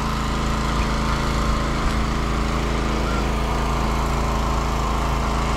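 Small single-cylinder gasoline engine of a Robin water pump running steadily, drawing pool water into the fishpond.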